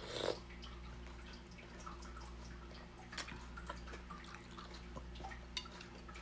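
Close-up mouth sounds of someone chewing a spoonful of juicy fruit and cucumber salad: scattered short wet clicks and squelches, with a short breath at the start. A steady low electrical hum runs underneath.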